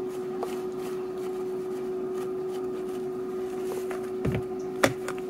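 Steady hum of a running air fryer's fan, with one low tone, while wings cook in it. A few light clicks and taps near the end as a spice shaker is handled.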